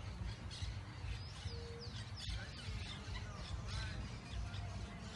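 Birds chirping in short gliding calls over a steady low rumble.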